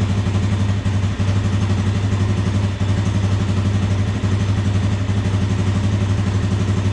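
Suzuki 400 ATV's single-cylinder four-stroke engine idling steadily with an even, rhythmic beat.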